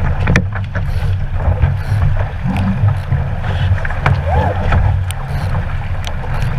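Wind buffeting the microphone and water rushing along the hull of a 470 racing dinghy under sail, with a few short knocks.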